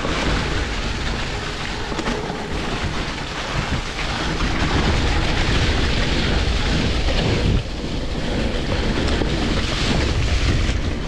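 Wind rushing over the camera microphone with rumble from an electric mountain bike riding a trail, dipping briefly about two-thirds of the way through.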